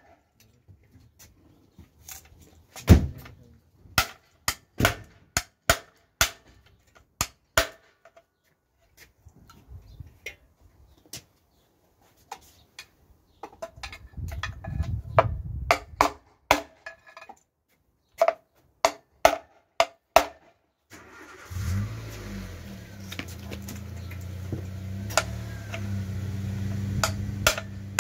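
Sharp metal clicks and knocks, roughly once a second, from hand-tool work on a BMW N47 diesel engine block on a stand. About three-quarters of the way in, a nearby car engine starts and runs steadily at idle under the knocks.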